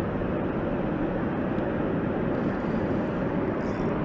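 Steady rushing roar of water pouring over a dam spillway.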